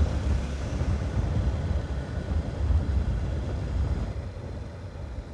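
Motorcycle on the move, heard from the rider's own microphone: a low, steady rumble of wind buffeting and engine and road noise that eases off after about four seconds.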